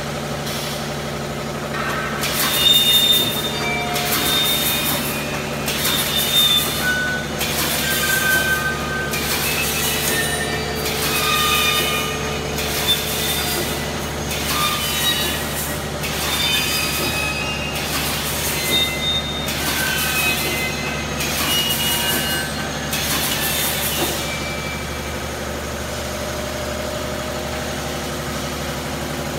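Automatic wire mesh welding machine for roll mesh running in its cycle about once a second. Each cycle is a hissing, clattering burst with short high metallic squeals, over a steady low electrical hum. Near the end the cycling stops and only the hum is left.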